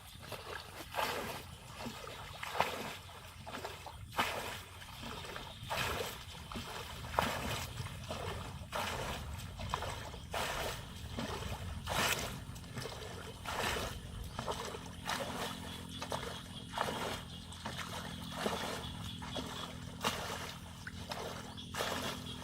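Shallow water splashing and sloshing in many irregular short splashes, as hands work through it catching fish.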